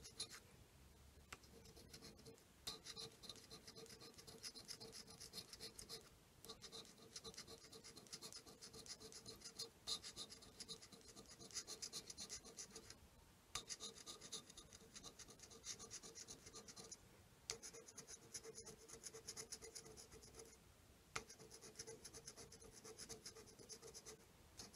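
A lottery scratch-off ticket being scraped with a round disc, rubbing the latex coating off the card in rapid back-and-forth strokes. Faint, in runs of a few seconds with short pauses between.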